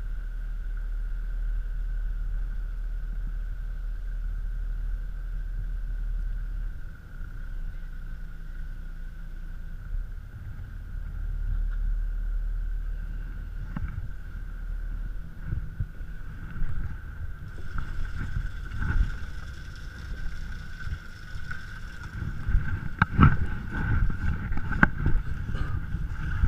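Fishing boat's engine running steadily with a constant whine and a low drone that drops away about halfway through. Irregular knocks and clanks come in the last few seconds.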